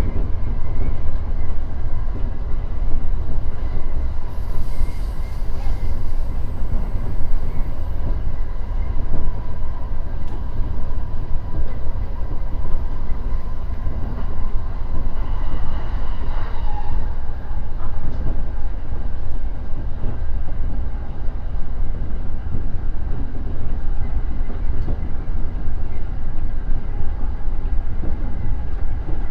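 JR East E231-1000 series electric train running along the line, heard from on board: a steady rumble of wheels on rails with a faint steady whine over it.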